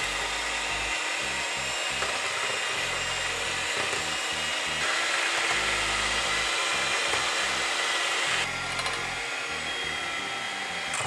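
Electric hand mixer running at top speed, its steel beaters whipping chilled heavy cream as it thickens toward stiff whipped cream. A steady motor whine that gets louder and brighter about halfway through, then drops a little near the end.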